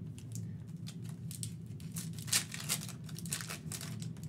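Foil trading-card pack wrapper being torn open and crinkled by hand: a quick run of crackling rustles, thickest in the middle stretch.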